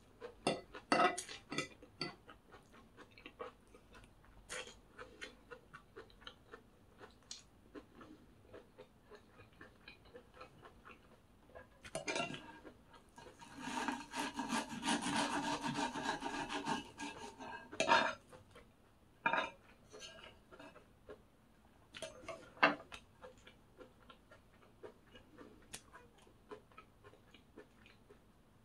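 Close-up eating sounds: cutlery clicking and scraping against a plate, with a stretch of about four seconds of steady rasping scraping near the middle.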